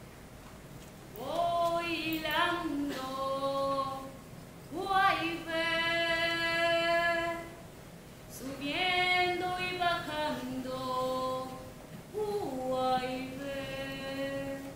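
A woman's voice singing unaccompanied in four phrases of long held notes. Each phrase slides up at its start, and short pauses fall between them.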